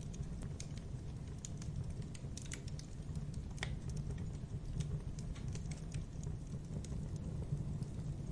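Logs burning in a fireplace: a steady low rumble of the fire with irregular sharp crackles and pops, one louder pop about three and a half seconds in.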